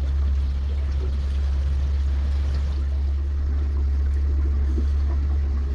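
Shanty boat's motor running steadily under way, a constant low hum.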